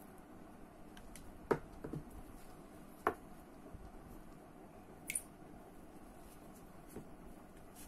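A few faint, separate clicks and taps of small metal reel parts and tools being handled on a Daiwa Seiko Coronet 5 reel frame, over a low steady hiss.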